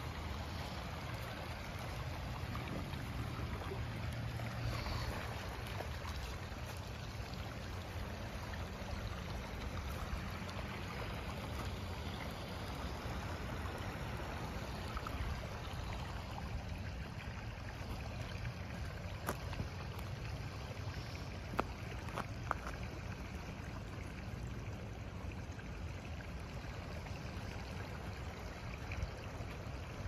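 Rain-swollen creek flowing steadily, under a low rumble of wind on the microphone, with a few sharp clicks a little past halfway.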